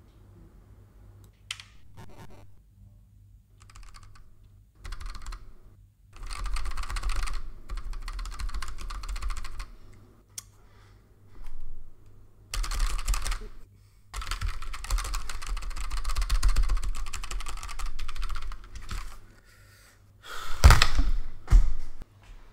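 Fast typing on a computer keyboard, in bursts of a few seconds with short pauses between them. Two loud thumps come near the end.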